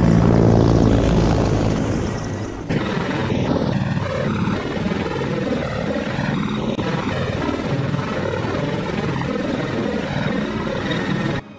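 Attack helicopter passing close overhead: loud, steady rotor and turbine sound that fades over the first few seconds. After an abrupt cut comes a rougher, even rushing noise of helicopter flight, which is cut off sharply near the end.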